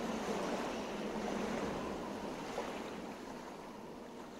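Closing seconds of a song played back through Snowy A8 Plus in-ear monitors: a steady wash of noise with faint held tones, slowly fading out.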